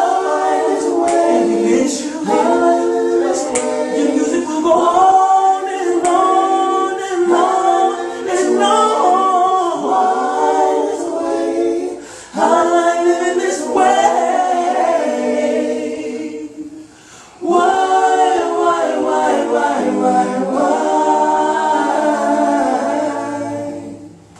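Unaccompanied vocal group singing in close harmony, several voices sustaining chords without words, with a brief break about 17 s in and a final chord that fades out at the very end.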